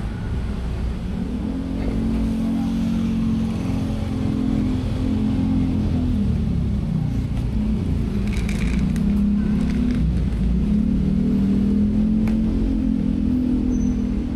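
A motor engine running steadily, its low hum wavering a little in pitch and growing louder about a second and a half in. About eight seconds in, dry cat kibble rattles briefly out of a plastic bottle.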